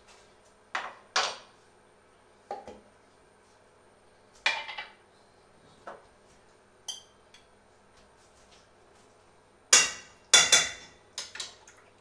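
Metal kitchen utensils clinking and knocking against a glass jar and a steel cooking pot in irregular single strikes. One clear ringing clink comes about seven seconds in, and the loudest knocks come near the end as the pot is stirred.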